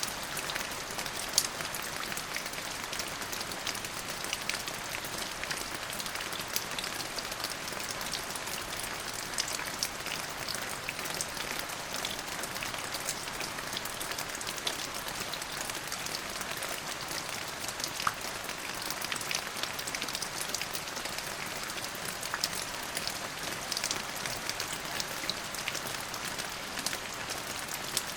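Steady rain falling, with a dense hiss and many distinct drops ticking on a surface.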